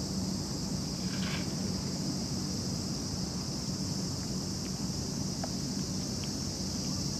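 Steady outdoor wind noise on the microphone with a constant high hiss and a low hum underneath, and a brief faint chirp about a second in.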